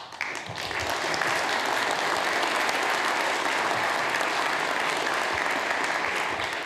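Audience applauding, swelling over the first second, holding steady, then tapering off near the end.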